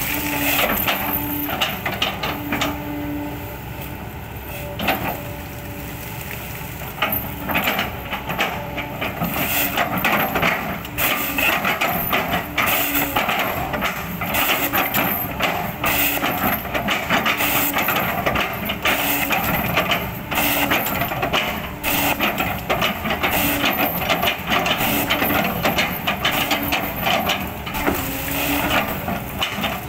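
Hydraulic excavator running under load while its bucket chops and crushes an oil palm trunk into chips: an engine drone with many sharp cracks and crunches of splitting fibrous wood, fewer in the first few seconds.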